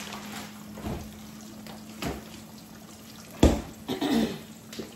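Pork chops frying in a pan, a soft sizzle with a steady hum under it, broken by a few knocks, the loudest about three and a half seconds in.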